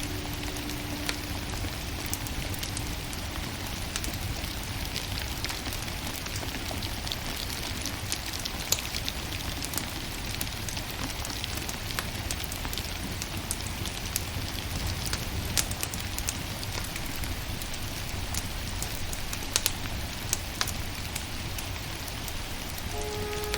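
Burning firewood crackling, with scattered sharp pops over a steady hiss and low rumble.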